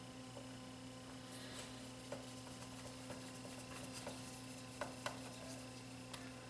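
Hand screwdriver driving a screw into a cassette deck's sheet-metal chassis: faint scattered clicks and scrapes of metal over a steady low electrical hum.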